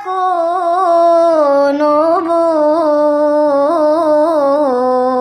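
A solo voice chanting a sengal unaccompanied, in long drawn-out lines with quick small turns on the notes. It steps down in pitch and settles on a long held low note near the end.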